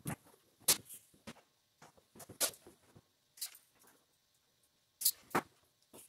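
Hands handling electrical wire and tools on a wooden workbench: irregular light clicks, taps and rustles, the loudest about a second in and again near the end.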